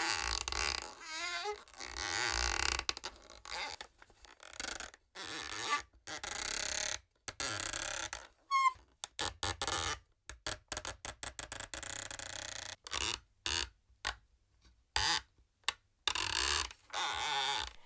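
Homemade creak machine creaking and groaning, recorded with an ultrasonic microphone and pitched down. It comes in irregular stretches that stop dead, with a few wavering squeals, one about a second in and another about halfway through.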